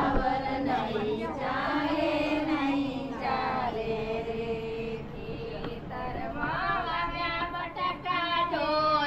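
Singing in high voices, a melodic song with long held notes and swooping pitch.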